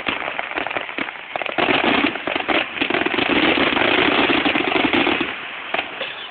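Aerial fireworks going off in a dense barrage of rapid crackles and pops, building about a second and a half in and easing near the end.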